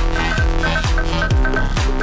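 Electronic dance music with a steady kick drum at about two beats a second and a repeating higher synth figure.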